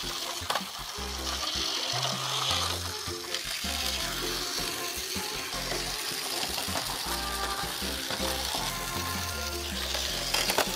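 Toy Elizabeth lorry running along a plastic road track, a steady hissing rattle of its wheels and drive on the plastic, over background music.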